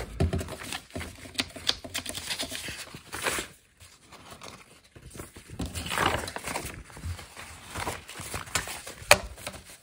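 Paper being handled: irregular rustling and crinkling with small taps, a short pause a few seconds in, and one sharp tap near the end.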